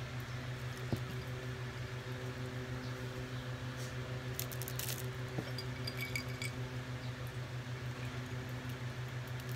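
A steady low electrical hum throughout, over which a milk carton crinkles and clicks as it is handled and milk is poured into a drinking glass.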